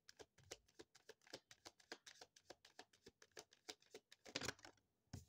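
Tarot deck being shuffled by hand: a quick run of faint card clicks, several a second, ending in a louder flurry about four and a half seconds in.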